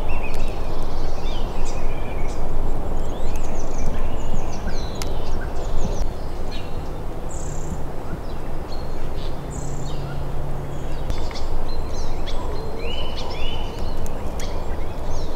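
Wild birds singing and calling in a spring forest, many short chirps and whistles overlapping, over a steady low rushing noise.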